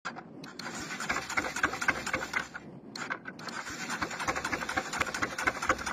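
Motorcycle engine running and driving a wooden propeller, a fast, continuous mechanical clatter with a brief dip about halfway through.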